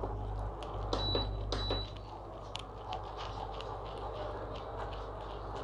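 A spatula stirring and scraping a thick, sticky kummayam batter of roasted lentil-rice flour, jaggery water and ghee in a nonstick kadai, with many small ticks of the spatula against the pan. Under it runs a steady low hum from the induction cooktop, which drops about two seconds in.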